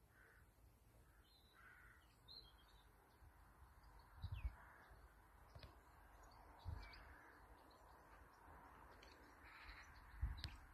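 Quiet outdoor garden ambience with faint, distant bird calls. A few short low thumps stand out, the loudest about four seconds in and again near the end.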